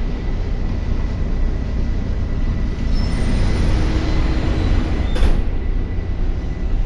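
Daihatsu diesel generator engine running steadily, a loud even drone, with a single sharp click about five seconds in.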